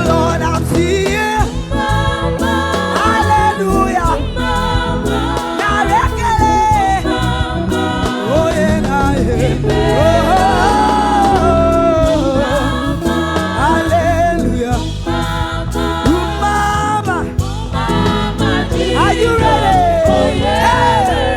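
Gospel praise music: singers with a band, the voices carrying a gliding melody over a steady backing.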